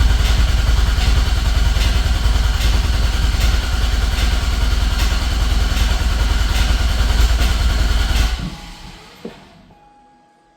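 2008 Corvette Z06's LS7 V8 cranking on the starter with the gas pedal floored, turning over steadily without firing to build oil pressure after an oil change; the cranking stops about eight seconds in.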